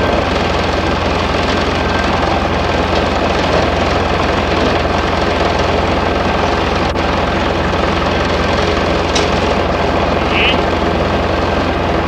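Farm machinery engine running with a steady, even drone, with a couple of faint clicks and a brief chirp near the end.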